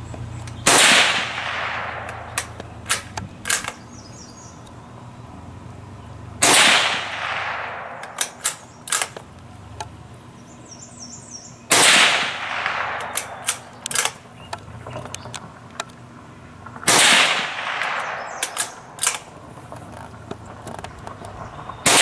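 Krico .22 Magnum rifle fired four times, about five seconds apart, each shot ringing off in a long echo. A few sharp metallic clicks follow each shot as the action is worked to chamber the next round, with a fifth shot at the very end.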